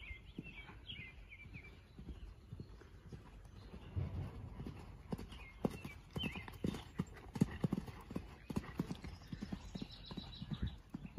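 Horse's hoofbeats on a sand arena at a canter, a quick run of dull thuds that gets clearly louder from about four seconds in.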